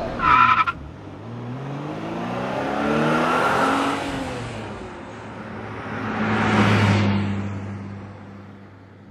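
Car sound effect over a title card: a short, loud squeal near the start, then an engine revving up, easing off, and rising again to a peak as it passes by about two-thirds of the way in, fading away toward the end.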